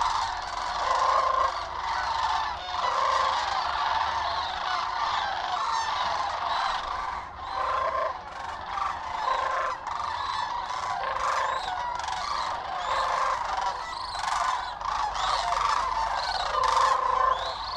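A flock of sandhill cranes calling continually overhead, many overlapping rolling calls repeating one over another.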